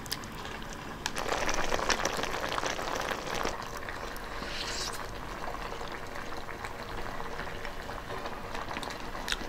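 Soft-shell turtle and yam stew simmering in its pot, a wet, crackly bubbling that is louder for a couple of seconds near the start, then settles to a steady simmer.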